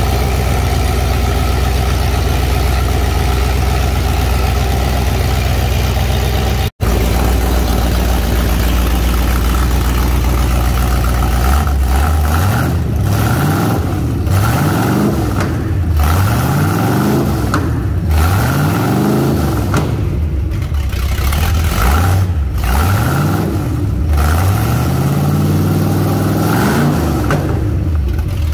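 V8 engine on a test stand idling steadily, then revved by hand at its four-barrel carburetor: from about twelve seconds in, a series of short throttle blips, each rising and falling in pitch, roughly every two seconds.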